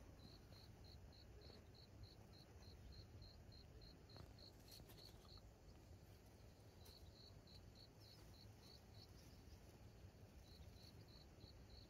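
Faint insect chirping, a cricket's short high pulses about four a second, in three runs with brief pauses between them.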